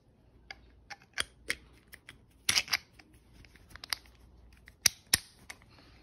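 Irregular small metal clicks and clacks of a hand-held screwdriver being handled over a tool bag, with a cluster of sharper clicks about halfway and a few more near the end.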